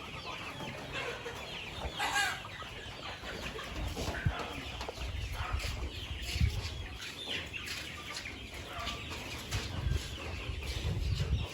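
A flock of Kuroiler chickens clucking and calling, many short calls from several birds overlapping, with a low rumble underneath.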